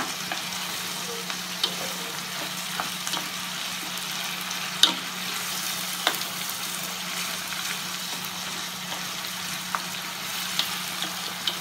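Squid, shrimp, mussels and chicken sizzling steadily in hot oil in a wide paella pan while a wooden spoon stirs them, with a few sharp knocks of the spoon against the pan.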